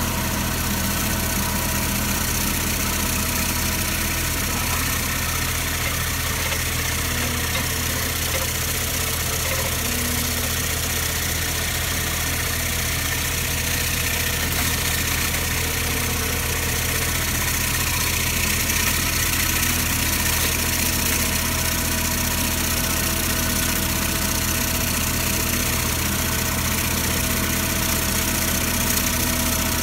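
Avant 760i compact loader's diesel engine running steadily at an unchanging speed, with a constant hiss over it.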